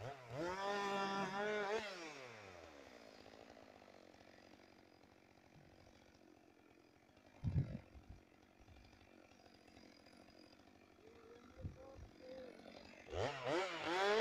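Chainsaw revving up and down, then winding down in pitch and dropping away to a quiet stretch broken by two short knocks. The saw revs hard again near the end.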